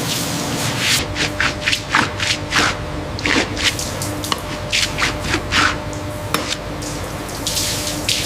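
Water splashing and spraying in irregular bursts, a few per second, over a faint steady hum.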